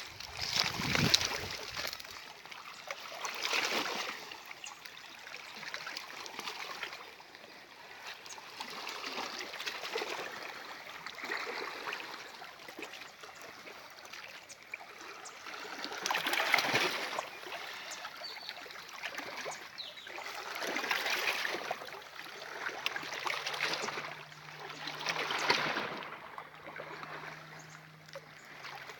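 Lake water lapping and splashing at the shore in small waves, swelling and fading every few seconds.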